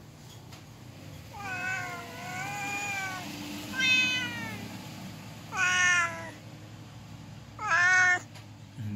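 Domestic cat meowing four times: a long wavering meow about a second and a half in, then three shorter, louder meows about two seconds apart. These are the cries of a hungry cat.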